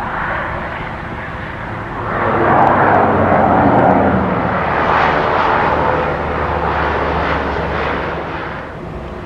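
Propeller aircraft engines running, swelling loudly about two seconds in as a plane moves close by, with a steady low hum underneath, then easing near the end.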